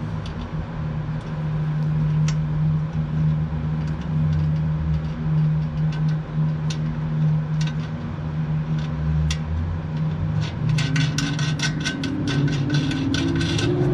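A steady low engine hum, with light clicks of small metal parts being handled as the mower's grass flap control cable end is worked into its bracket, thickening into a quick run of clicks and rattles near the end.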